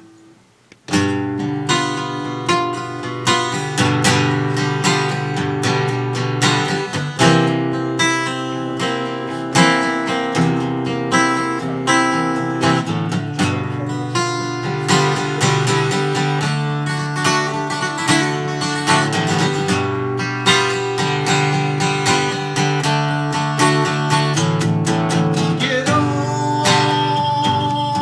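Acoustic guitar strummed in a steady rhythm, starting about a second in: the instrumental intro of a song, with no singing yet.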